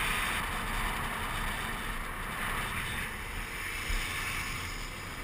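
Wind rushing over the microphone on a fast downhill run, with a low rumble underneath and a brief low thump about four seconds in.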